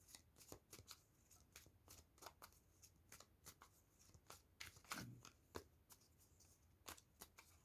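Faint, scattered clicks and flicks of tarot cards being shuffled and handled.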